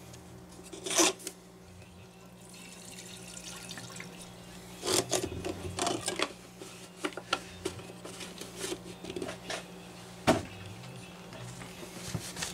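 Scattered clicks, knocks and rattles of a Homelite 150 chainsaw being handled, over a steady low hum; the engine is not running.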